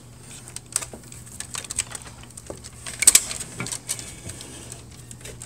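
Plastic wire connectors and a bundle of cables clicking and rustling against a laser printer's sheet-metal frame as they are pulled through a hole, in irregular small clicks with a sharper knock about three seconds in, over a faint steady low hum.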